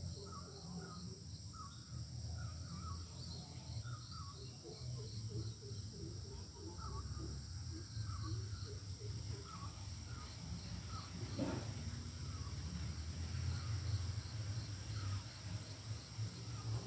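Outdoor insect drone in steady high tones, with small birds chirping over and over and one louder call about eleven seconds in.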